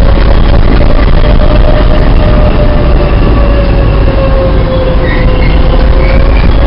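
Diesel locomotive engine running while the locomotive stands at the platform: a loud, continuous rumble with a steady whine held above it that wavers slightly in pitch.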